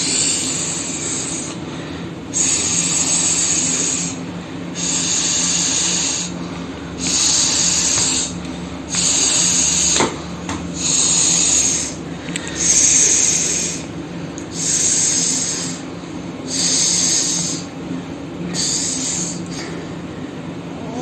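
A person snoring in a regular rhythm, a raspy snore about every two seconds, over a low steady hum.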